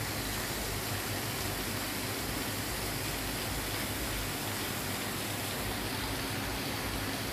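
Steady, even hiss of background noise with no distinct sounds in it; the gecko makes no call.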